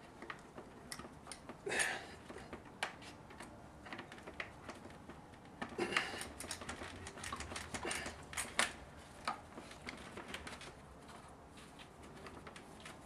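Scattered light clicks and taps of hand work on FabricMate wall track, closer together between about six and nine seconds in.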